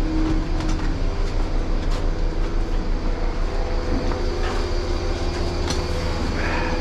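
Electric-motor-driven silage feed wagon (a cut-down Badger chopper box) running while unloading, a steady low hum with a rhythmic clatter of about three to four beats a second and occasional clicks.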